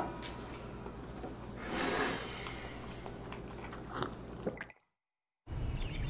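Close mouth sounds of eating and drinking: chewing, a short breathy noise about two seconds in, and a sip from a mug with a few small clicks near four seconds. The sound then cuts out completely for a moment before faint outdoor ambience comes in.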